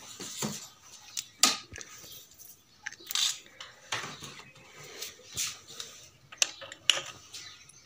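Irregular clicks, taps and light rustling from hands handling wires and a mains plug at a workbench, with a sharper knock now and then.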